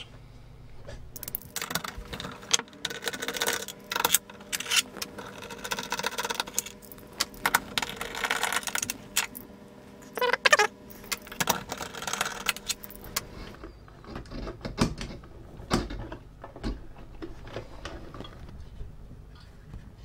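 Small metal tools and hardware clinking and rattling, with many sharp clicks, as a socket is handled and the circuit board's hex standoffs are unscrewed. After about fourteen seconds it thins out to a few scattered knocks.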